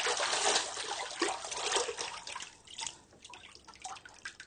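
Water splashing and gurgling in a yacht's flooded bilge, where seawater is coming in through an open through-hull hole and hands are working in it. The splashing is busy for about two and a half seconds, then dies down to a few scattered splashes and drips.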